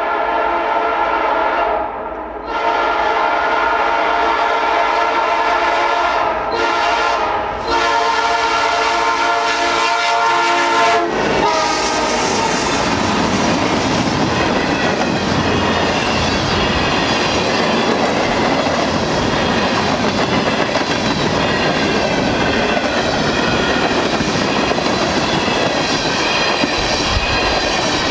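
A fast New York, Susquehanna & Western freight train sounds its locomotive air horn at a grade crossing in three long blasts, the last cutting off about eleven seconds in. The train then rushes past at speed, its wheels clacking over the rails.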